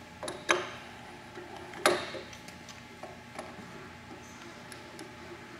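Metal clicks and clunks from the manual handles and handwheels on the front of a Kiheung KMB-U5 bed-type milling machine as they are worked by hand. There is one loud knock about two seconds in, with a few lighter ticks before and after.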